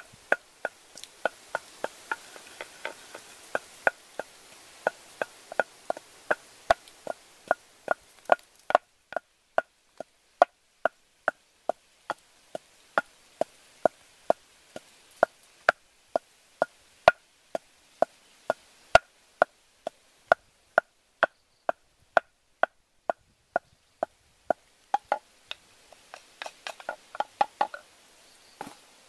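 Wooden pestle pounding in a mortar: steady knocks about two a second, with a quicker run of lighter taps near the end.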